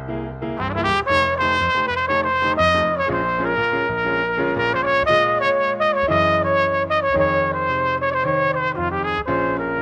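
Jazz trumpet playing a melody of mostly long held notes over piano accompaniment.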